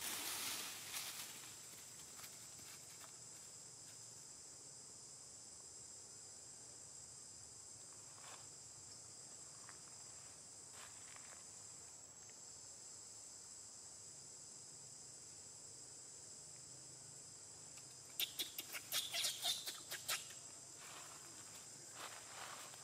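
A steady, high-pitched chorus of insects, with dry leaf litter crackling in short bursts at the start, a few times in the middle, and in a denser, louder flurry about three quarters of the way in.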